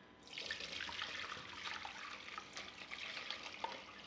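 Vinegar-and-water marinade being poured from a large pot through a mesh strainer into a bowl: a steady splashing trickle that starts about a quarter second in, with small ticks scattered through it.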